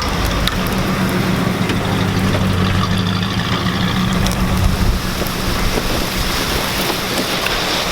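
Pickup truck engine running steadily with a low hum that fades back about five seconds in.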